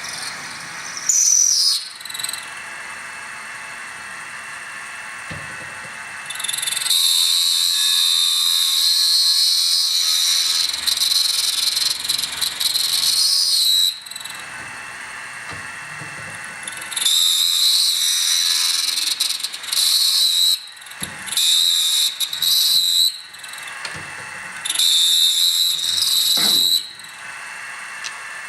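Drill bit squealing as it bores the first hole into an aluminium AR-15 lower receiver forging. The squeal comes in five bursts: one short one near the start, then one of about seven seconds, and three of two to three seconds each. A quieter steady sound fills the gaps between them.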